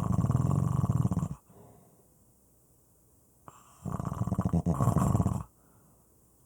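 Snoring: two long, loud snores, the first already under way and cutting off about a second and a half in, the second starting near four seconds in and lasting about a second and a half.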